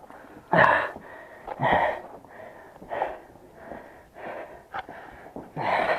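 A man breathing hard, out of breath after crawling through a tight passage, with heavy breaths a little over a second apart.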